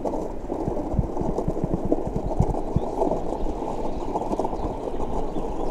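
Muffled footsteps on snow-covered ice: a run of dull, uneven thuds, a few to the second.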